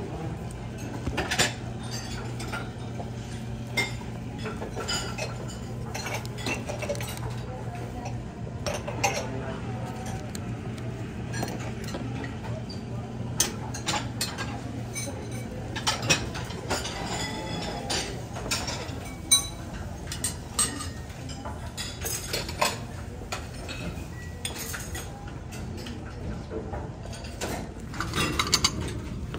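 Dining-room clatter: plates, bowls and cutlery clinking irregularly over a steady low hum of room ventilation. There are sharper clinks near the end.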